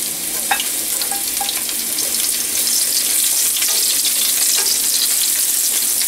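Slit green chillies, ginger and garlic slices sizzling in a little hot oil in a nonstick frying pan, with a light tap about half a second in as the garlic is tipped in, then stirred with a wooden spatula. The steady sizzling hiss grows a little louder after about two seconds.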